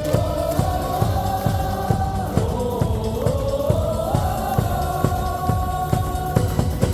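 Baseball stadium crowd singing a cheer song in unison over loud amplified music with a steady drum beat.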